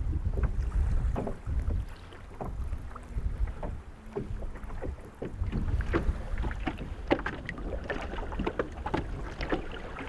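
Small waves lapping and slapping against the hull of a small fishing boat in irregular knocks, with wind rumbling on the microphone.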